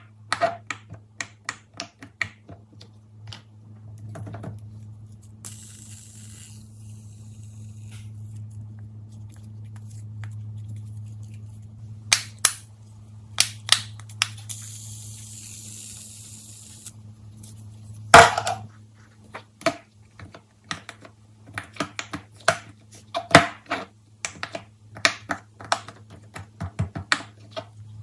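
Silicone pop-it fidget toys and a pop-it fidget spinner being handled and set down on a table: scattered light clicks and taps, one sharper knock past the middle, over a steady low hum. Two stretches of soft hiss come in, one early and one around the middle.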